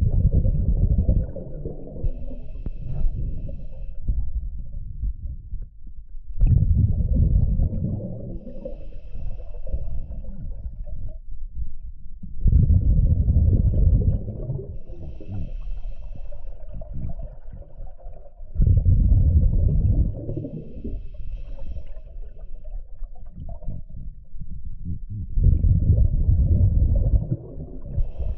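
Scuba diver breathing through a regulator underwater: a rumbling gush of exhaled bubbles about every six seconds, five breaths in all, with a faint high hiss of the inhale between them.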